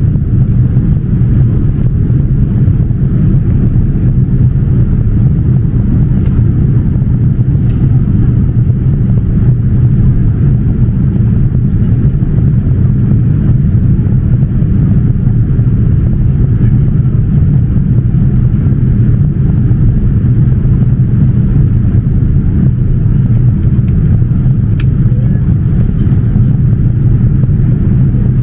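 Steady low rumble of a Boeing 787-9 airliner cabin in flight: engine and airflow noise, even and unchanging.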